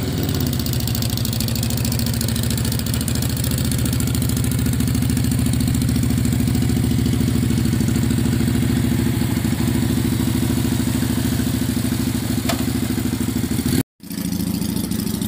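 Keeway/Benelli V-twin motorcycle engine idling steadily through its stock exhaust. The sound cuts out for a moment near the end, then the idling resumes.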